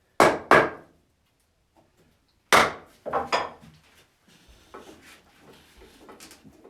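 Hook tool cutting into wood spinning on a pole lathe. There are sharp cutting strokes, two in quick succession near the start and three more around three seconds in, followed by lighter, softer cuts.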